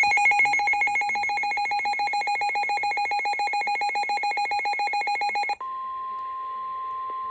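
A buzzy electronic alert beeping rapidly, about ten pulses a second, then cutting off about five and a half seconds in. It is replaced by a single steady tone near 1 kHz, the NOAA Weather Radio warning alarm tone that signals an urgent warning is about to be read.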